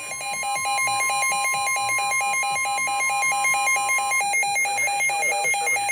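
Weather alert radio sounding its alarm: a rapid, steady on-off electronic beeping. Under it runs a steady single-pitched tone, the 1050 Hz NOAA Weather Radio warning tone, which cuts off about four seconds in. It signals an incoming National Weather Service severe thunderstorm warning.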